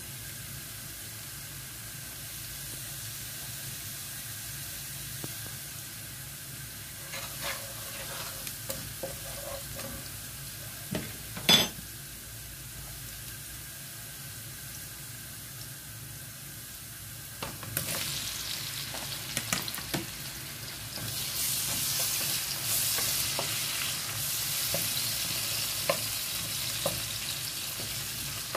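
Minced garlic sizzling in olive oil in a nonstick frying pan, with a wooden spoon stirring and clicking against the pan and one sharp knock about a third of the way through. Past halfway, diced tomatoes go into the hot pan and the sizzle grows louder and hissier, with more stirring.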